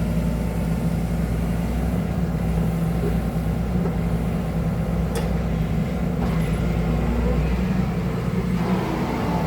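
Excavator's diesel engine running steadily under work, a constant low drone with no change in pace.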